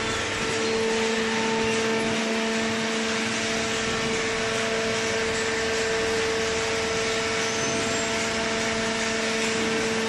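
Hydraulic cardboard baler's electric motor and hydraulic pump running steadily: a constant hum with several steady tones over an even mechanical whir.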